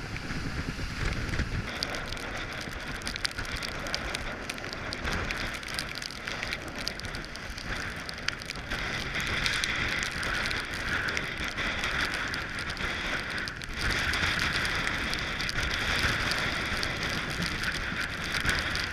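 Rain and spray pattering on the camera and deck over steady wind and water noise as a Nautitech Open 40 sailing catamaran runs fast through rough water; the pattering grows louder in the second half.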